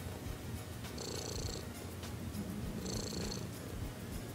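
Domestic cat purring steadily close to the microphone, swelling and easing about every two seconds with its breathing.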